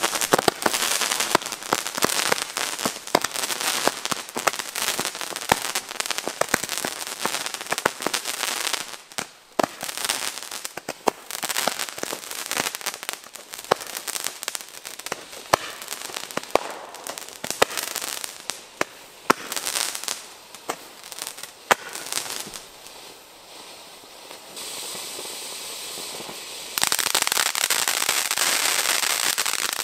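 Nico firework fountains spraying sparks with a steady hiss, amid many sharp cracks and pops. The noise thins out for a few seconds, then a fresh fountain starts with a sudden loud, steady hiss near the end.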